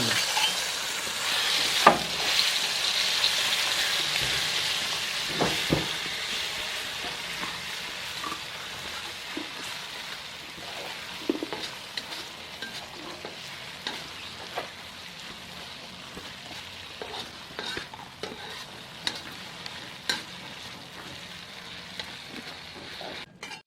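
Ground chili, garlic and onion paste sizzling in hot vegetable oil in a frying pan, loudest at first and slowly dying down, with occasional clinks and scrapes of a utensil stirring it against the pan.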